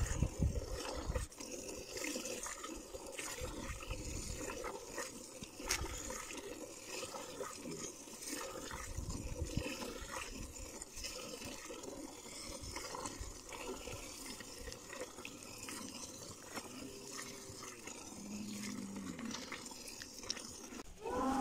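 Streams of milk squirting from a cow's teats into a container as the cow is milked by hand.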